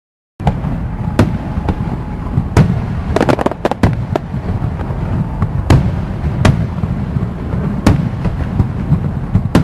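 Fireworks display: a continuous low rumble of shells launching and bursting, cut by sharp bangs roughly once a second and a quick cluster of crackling reports about three to four seconds in. It starts abruptly about half a second in.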